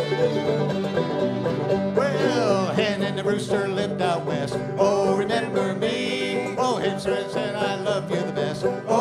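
Old-time string band playing a tune together: banjo and two fiddles leading over a strummed acoustic guitar.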